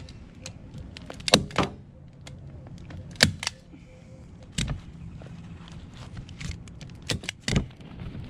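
Staple gun firing staples through a jet ski seat cover into the seat base: about seven sharp clacks, mostly in quick pairs, with handling noise between them.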